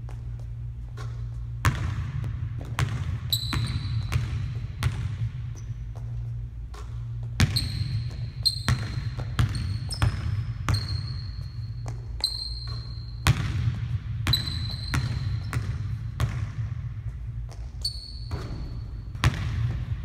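Basketball bouncing on a hardwood gym floor during shooting practice: sharp thuds about once a second that echo in the large hall, several of them followed by a brief high tone, over a steady low hum.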